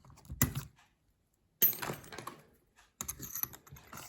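Light clicks and small metallic taps as a folding pocket knife and its bolt are handled, in short spells. There is a sharper click with a brief ring after about a second and a half.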